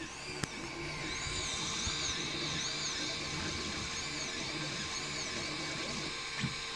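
FDM desktop 3D printer at work: its stepper motors whine, rising and falling in pitch again and again as the print head moves back and forth, over a steady hum.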